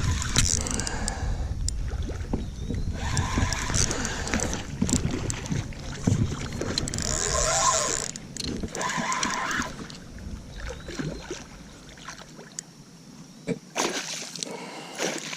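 Water splashing and sloshing as a hooked northern pike is played in, in irregular surges, over a low wind rumble on the microphone that eases off about two-thirds of the way through.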